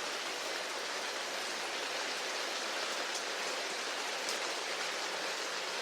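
Steady rain falling on a surface, an even hiss with a few faint drop ticks.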